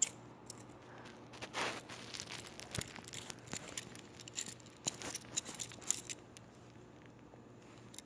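Faint handling noise: scattered light rustles and small clicks, irregular, over the first six seconds or so.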